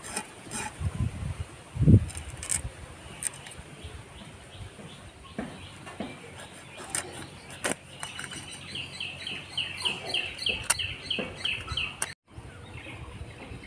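Fish being scaled against an upright boti blade: a run of short scraping strokes and knocks, with one heavier thump about two seconds in. In the second half a bird chirps rapidly and repeatedly, about three or four calls a second.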